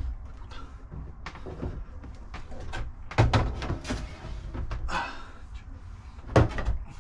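Knocks and clunks of hard objects being handled and set down, with two heavier thumps about three seconds in and near the end.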